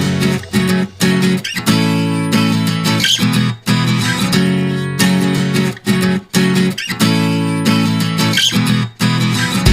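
Background music led by a strummed acoustic guitar, its chords broken by short pauses.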